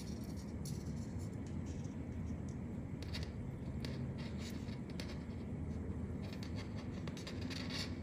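Short, dry scratching and rustling ticks as fingers handle thin insulated hookup wires and twist their stripped copper ends together, over a steady low background rumble.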